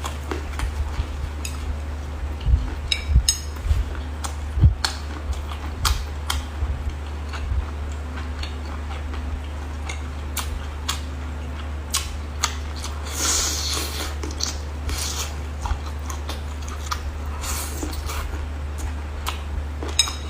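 Dishes and utensils clicking and knocking at irregular intervals, with two brief rustles partway through, over a steady low hum.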